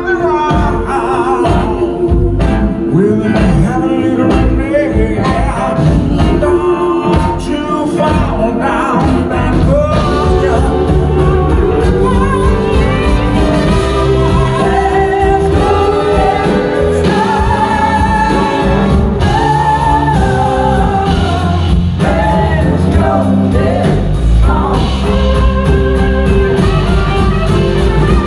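Live band playing with lead and backing singers, electric guitar and drums, heard loud from within the audience.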